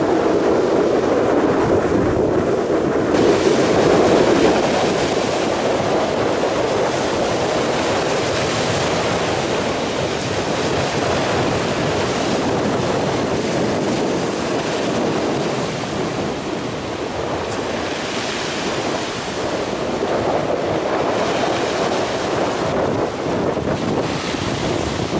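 Surf breaking and washing up onto a pebble beach, a continuous rushing sound, with wind buffeting the microphone.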